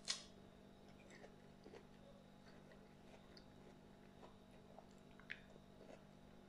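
A crisp bite into a firm, crunchy peach slice, then faint close-up chewing with small wet clicks; another short crisp sound comes about five seconds in.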